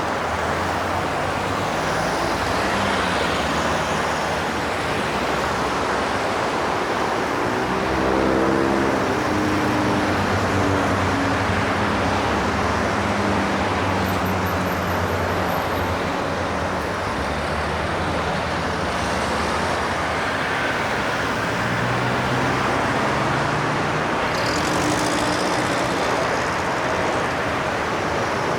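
Steady highway traffic: a continuous rush of tyres and engines from passing cars and trucks. About eight seconds in, one heavier vehicle's engine note stands out as it passes.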